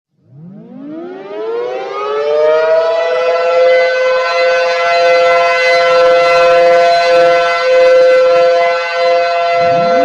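Civil defense siren winding up from silence, its pitch rising for about two and a half seconds to a steady two-tone wail that it then holds. A second wind-up begins just before the end.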